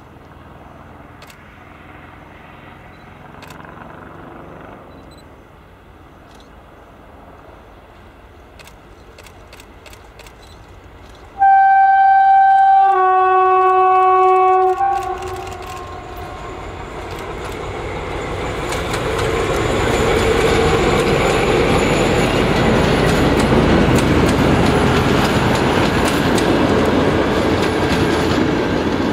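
An SU45 diesel locomotive approaches, faint at first, then sounds its horn for about three and a half seconds, first one note and then a two-note chord. It then passes close with its engine running loud and the wheels of its passenger coaches clattering on the rails.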